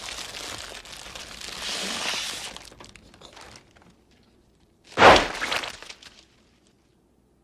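Rustling, crinkling noise for the first few seconds, then a brief gap and one sudden loud crash about five seconds in that trails off over about a second.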